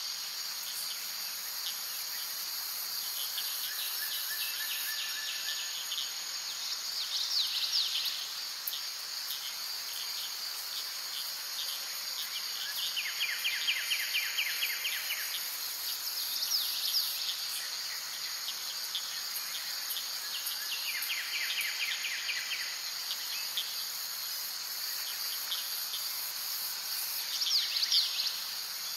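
Insect chorus: a steady high buzzing, with short, fast-pulsed trills breaking in every few seconds.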